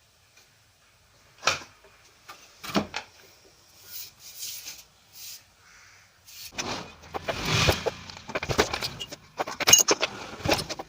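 Clicks, knocks and rattling of small hard objects being handled: two separate knocks early, then from about two-thirds of the way in a busier stretch of clatter with sharp clicks.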